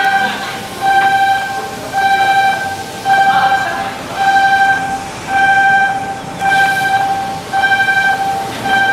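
Electronic warning beeper sounding over and over, a steady pitched beep about once a second, with faint clatter of work between the beeps.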